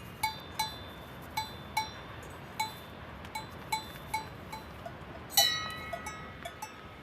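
Cowbell clanking in short, irregular strikes, about two a second, each ringing briefly at the same few pitches, with one louder, differently pitched clang about five seconds in.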